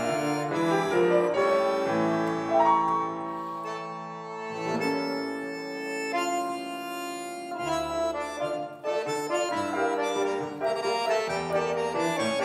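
Button accordion and C. Bechstein grand piano playing a duo: moving notes over a rhythmic low bass, then a quieter passage of long held chords, with the pulsing low bass returning about eight seconds in.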